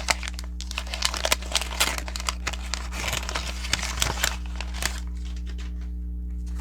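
Wax paper wrapper of a baseball card pack being torn open and crinkled, a dense run of crackles that stops about five seconds in. A steady low hum runs underneath.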